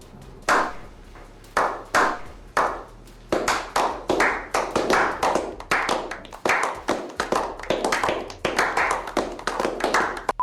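A run of sharp percussive claps or taps, each ringing on briefly. They come about one a second at first, then quicken to two or three a second from about three seconds in.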